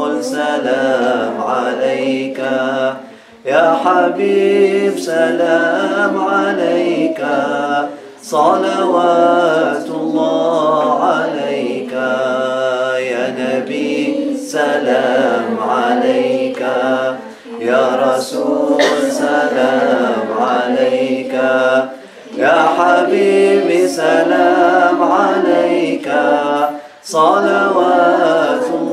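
A group of voices chanting Islamic dhikr together, unaccompanied, in sustained phrases with short breath breaks every four or five seconds.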